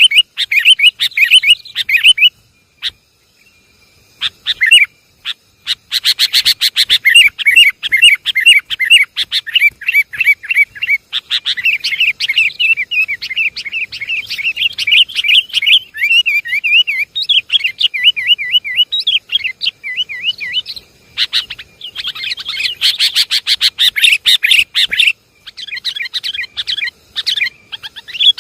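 Sooty-headed bulbuls (kutilang) chattering and calling in quick, bubbling phrases, several birds at once, as in a bird-trapping lure recording. There are short pauses a few seconds in and near the end, and bursts of sharper, faster chatter around 6 seconds and again in the last third.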